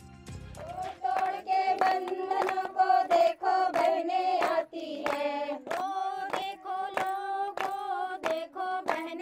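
A group of women singing a song together, clapping their hands in time at about two to three claps a second; the singing and clapping start about a second in.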